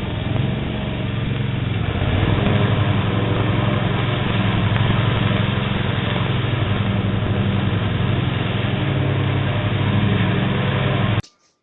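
An engine running steadily with a low, pulsing note, heard through a doorbell camera's narrow-range microphone; it cuts off suddenly near the end.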